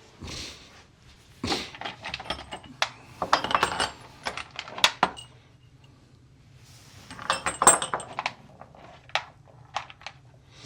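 Loose metal screws and small hardware clinking and rattling as they are picked through by hand, in two spells of jingling, about a second and a half in and about seven seconds in, with scattered single clicks between.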